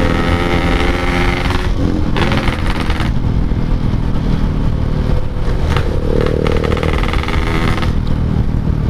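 Yamaha RX-King's 135cc two-stroke single-cylinder engine running through a Packing Power exhaust while ridden. It revs hard at first, the throttle is closed about two seconds in, and it picks up again around the middle.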